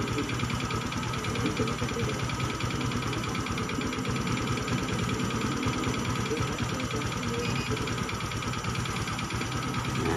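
Fuel-injected Honda motorcycle engine idling steadily, with an even rapid low pulse.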